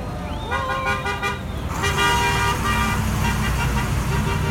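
Two long vehicle horn blasts, the second louder, over the steady low rumble of heavy military vehicles driving past.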